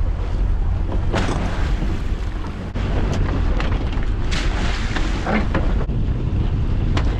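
Wind buffeting the microphone over the outboard motor of a small boat under way. A few short sharp knocks and splashes cut through as baited crab pots are handled and thrown over the side.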